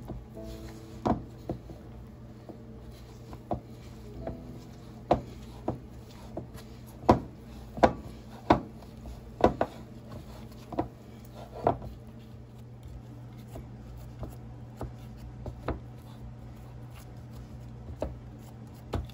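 Chin chin dough being kneaded by hand in a plastic mixing bowl, with irregular knocks roughly once a second, over a steady low hum.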